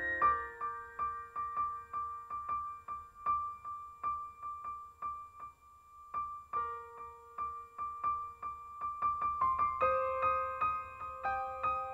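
Background music: a soft piano or electric piano melody with a repeated high note, thinning out briefly about halfway through before fuller chords return.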